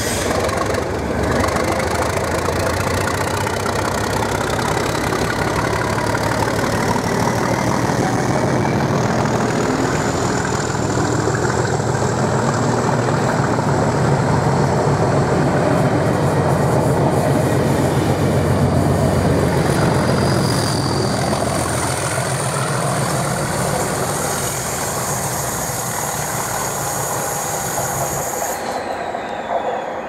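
Colas Rail Class 37 diesel locomotives pulling away under full power, their English Electric V12 engines running hard. A whistle rises in pitch over the first several seconds as the turbochargers spool up, and the train passes close by.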